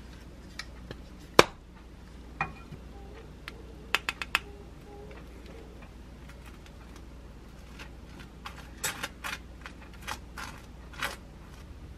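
Kitchen handling sounds: a sharp click about a second and a half in, then a quick run of four light clicks around four seconds. Near the end, a metal spoon scrapes in short strokes as it spreads whole-grain mustard across a slice of bread.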